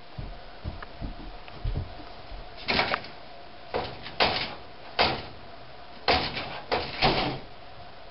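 A series of about eight short, scraping bangs at irregular intervals over a faint steady hum.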